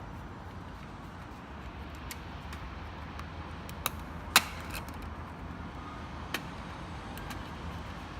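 A few scattered sharp clicks and taps over a steady low background hum, the loudest a little past the middle: small plastic parts of a device being handled during disassembly.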